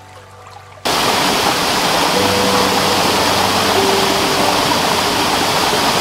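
Stream water rushing and splashing over rocks, cutting in loud and sudden about a second in and then steady. Before it, and faintly under it, soft background music with a few long held notes.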